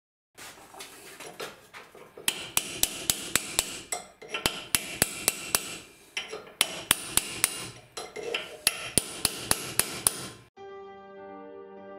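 A small hammer tapping a steel punch on a steel shaft in quick runs of several sharp, ringing metal-on-metal taps, with short pauses between runs. Music comes in near the end.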